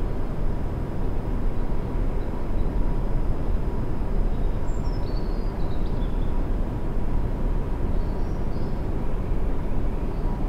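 Jet airliner engines at taxi power, heard from a distance as a steady low rumble with a faint steady whine.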